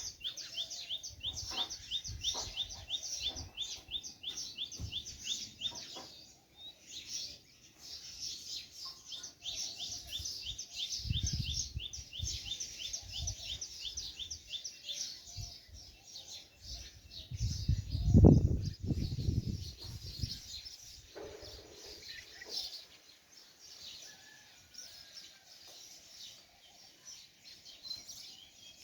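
Small birds chirping in quick repeated series, echoing inside a well. About two thirds of the way through a loud low rumble rises and fades, louder than the birds.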